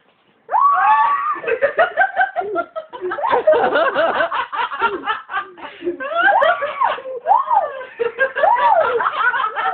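A person laughing: a long, continuous run of giggling and chuckling that starts about half a second in, its pitch swinging up and down.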